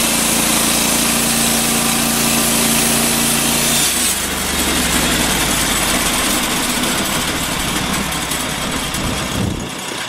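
Norwood LumberPro HD36 portable band sawmill running: its engine works under load while the band blade saws through a squared log. About four seconds in, the blade clears the wood and the sound changes as the engine runs on without load, easing off near the end.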